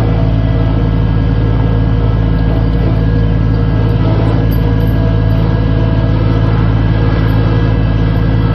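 Rented skid steer's engine running loud and steady at a constant speed.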